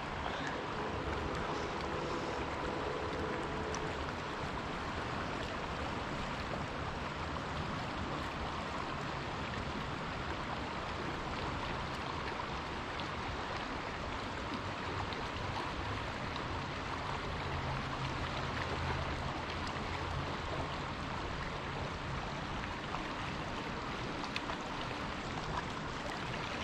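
Flowing river water rushing steadily.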